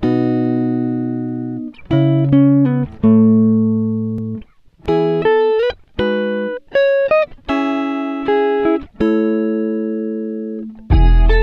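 Background music: slow, plucked guitar-like notes and chords, each ringing and fading before the next. Near the end a fuller part with a deep bass comes in.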